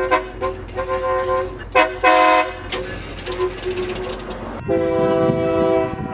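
Locomotive multi-chime air horn sounding a string of short blasts, then a different horn chord sounding one longer steady blast near the end.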